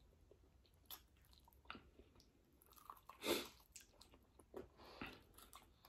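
Faint close-up chewing and wet mouth sounds of people eating chicken wings, with scattered small clicks and a louder bite about three seconds in.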